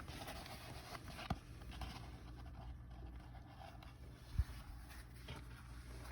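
Faint rustling and handling noise of the phone and the diamond-painting canvas being moved by hand, with a light knock about a second in and a soft thump about four seconds in.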